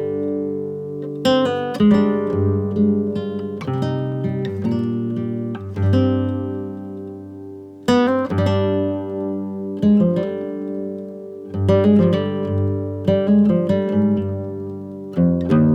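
Background music: an acoustic guitar playing slow chords, each struck and left to ring and fade before the next, every second or two.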